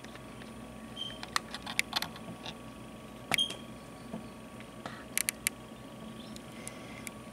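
Plumed whistling ducks foraging in dry leaf litter: scattered sharp clicks and crackles, loudest at about 2 s, 3.3 s and 5.3 s, with two very brief high chirps at about 1 s and 3.3 s.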